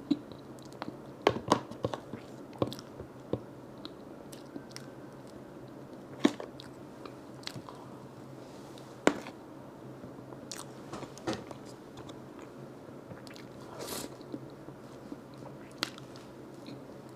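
Close-miked eating sounds: chewing and biting with irregular wet clicks and occasional louder crunches, over a low steady hum.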